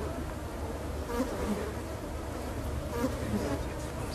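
Buzzing of an insect swarm: a steady drone with a low hum under it, with short wavering swoops in pitch now and then.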